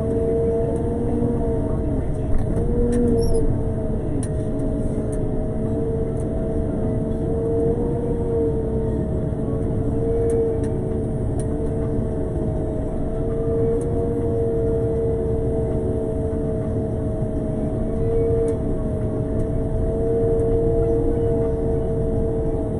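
Road sweeper running as it drives along, a steady whine over a low rumble that holds throughout, with a few faint clicks about three seconds in.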